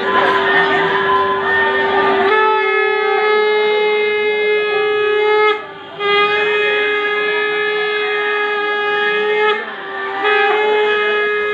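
Conch shell (shankha) blown in long, steady, single-pitch blasts, with two short breaks for breath, about five and a half and nine and a half seconds in: the ritual conch call of a Hindu wedding.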